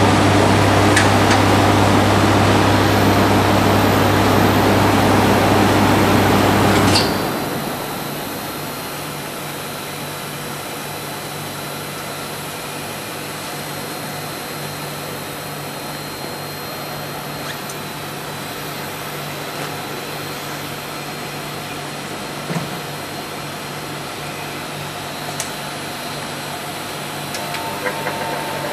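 Steady mechanical running noise from a twin-screw extruder and pelletizer line: a deep hum with hiss. It drops sharply to a quieter steady hum about seven seconds in.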